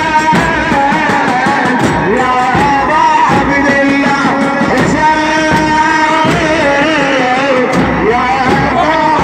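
Music of a Shia mourning chant (latmiya) recording: a held, wavering melody over a low, pulsing beat, with no words sung.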